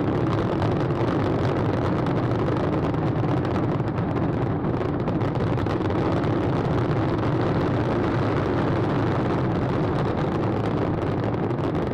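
Steady, dense rumbling noise of a helicopter in flight, heard from on board, with no separate firework bangs standing out.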